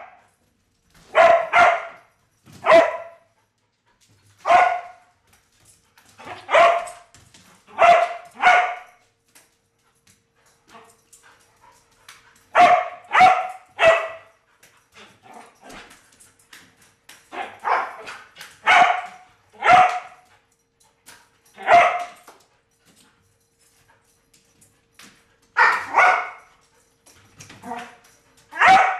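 Border Collie barking repeatedly in short, sharp barks, mostly in quick runs of two or three, with pauses of a second or more between runs and a longer lull about a third of the way through.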